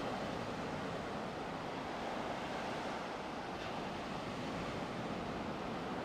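Ocean surf washing steadily onto a beach, with some wind on the microphone.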